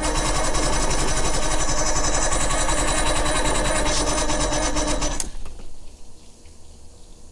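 Old Johnson 90 hp two-stroke outboard being cranked over by its electric starter in a fast, even chatter, without catching, until the key is released about five seconds in. The owner puts the failure to start down to the battery needing more time to charge.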